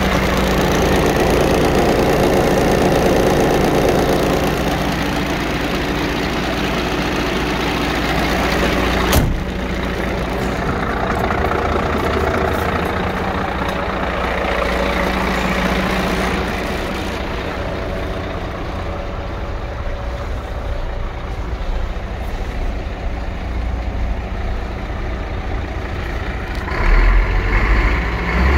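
Scania P114 dump truck's 11-litre six-cylinder diesel engine idling steadily. A single sharp click comes about nine seconds in, and the engine gets louder for a moment near the end.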